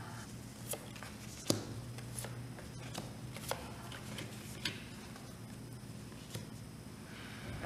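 Dixit playing cards being dealt face up onto a table one at a time, each landing with a light, sharp tap or slap; about half a dozen taps, the loudest about a second and a half in.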